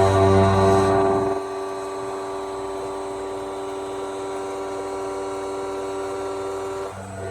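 CNC milling machine running with a steady, even-pitched whine; a louder low hum underneath drops away a little over a second in, and the sound shifts near the end.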